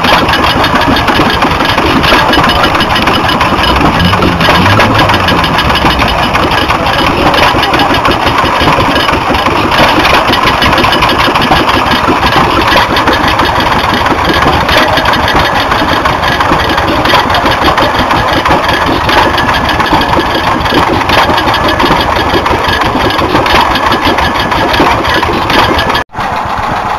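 Several hit-and-miss stationary gas engines running at once, their firing strokes overlapping in a dense, steady run of pops and clicks. The sound breaks off for an instant near the end.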